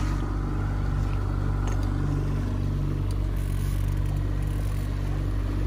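Fishing boat's engine running steadily, a low even hum.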